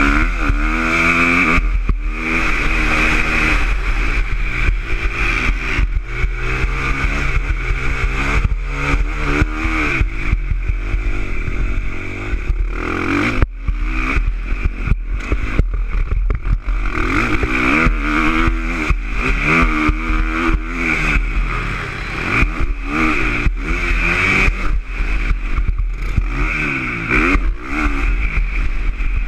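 2019 KTM 450 SX-F single-cylinder four-stroke motocross engine revving hard and dropping back again and again as the bike is ridden around the track, heard close up from a camera mounted on the bike.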